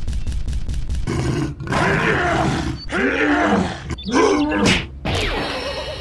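Dinosaur roar sound effects: three loud growling roars that bend up and down in pitch, then a fainter one near the end. Before the first roar, about a second in, a rapid even clatter of about ten clicks a second stops.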